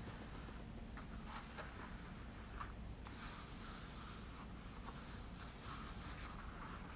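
Hands handling a rotisserie chicken in a black plastic takeout tray: faint scratching and rubbing of fingers on the plastic and the skin, with a few small clicks at first and denser rustling in the second half.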